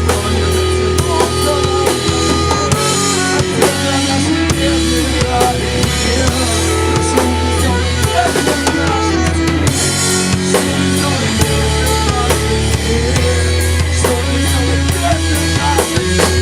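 Rock band playing an instrumental passage with no vocals: a drum kit keeping a steady beat of kick and snare under long, sustained bass notes and held guitar notes.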